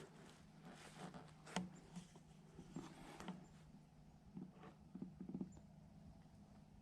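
Near silence with faint, scattered rustles and light clicks, the sharpest about a second and a half in and a small cluster around five seconds.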